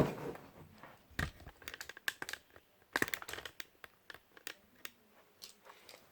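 Scattered light clicks, knocks and crinkling of things being handled and moved about, with a single stronger knock about a second in.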